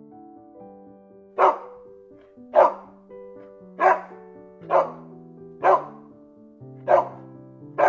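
A dog barking, about seven single sharp barks roughly a second apart starting about a second and a half in, over background music of held notes.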